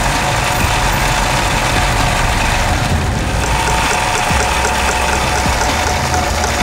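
Simaru SM-20U73 industrial zigzag sewing machine running at a steady speed, stitching a decorative zigzag pattern through fabric.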